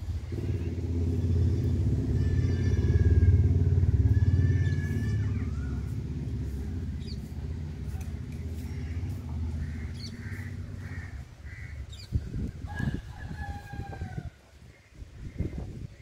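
A motor vehicle's engine passes by, swelling to its loudest a few seconds in and fading away over about ten seconds, while birds call and chirp over it. A few dull bumps come near the end.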